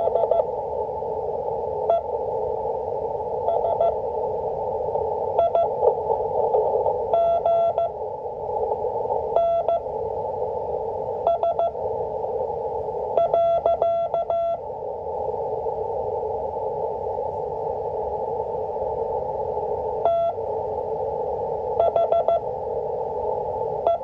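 Slow Morse code (CW) from the W1AW practice broadcast, heard through the speaker of an Icom IC-718 HF transceiver. A single beeping tone is keyed on and off in dots and dashes at five words per minute, with the characters spaced a second or two apart. The tone rides over a steady band of receiver hiss and pauses for about five seconds midway.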